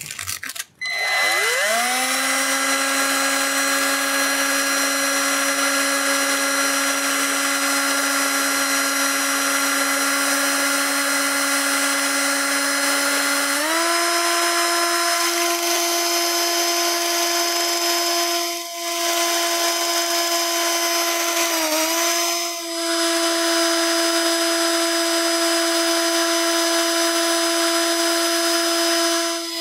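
Milwaukee cordless drill spinning a small sanding drum against the powder-coated end of a motorcycle swing arm, sanding the powder coat off down to the metal. It gives a steady motor whine that spins up about a second in, steps up in speed about halfway through, and sags briefly two or three times.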